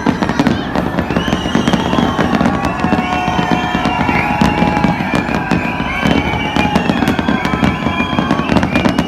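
New Year fireworks going off without a break: a dense, continuous barrage of bangs and crackling, with drawn-out pitched tones above it.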